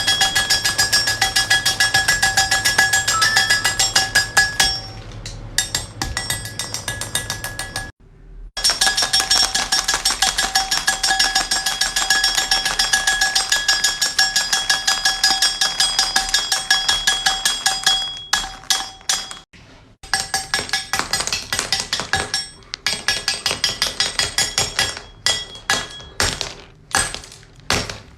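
Knife chopping through hard candy on a cutting surface, many quick strikes a second with a steady ringing tone over them. It stops briefly about 8 seconds in and again about 18 seconds in, and the strikes come slower and more unevenly near the end.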